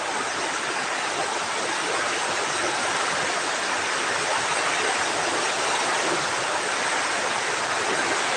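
Heavy typhoon rain pouring down in a steady, dense hiss.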